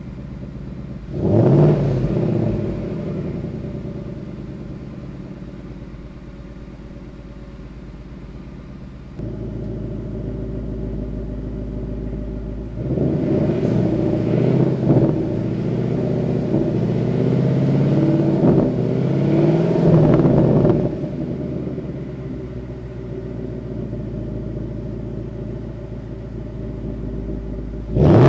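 Ford Mustang GT's 5.0-litre V8 exhaust in Track mode. It idles with a blip of the throttle about a second in, first through the factory active exhaust. Partway through, the sound switches to the same car with a Steeda resonator-delete H-pipe, idling deeper and revved several times in a row.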